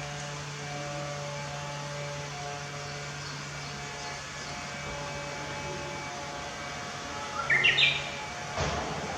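A Japanese bush warbler sings one short phrase of quick stepped notes about seven and a half seconds in, over a steady low hum. A brief thump follows near the end.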